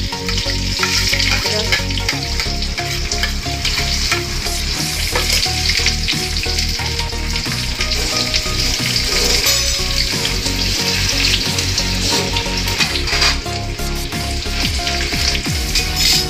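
Chopped garlic sizzling and crackling steadily in hot oil in a kadai.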